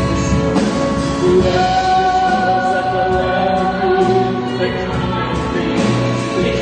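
Live musical-theatre song: voices singing long held notes over a band accompaniment.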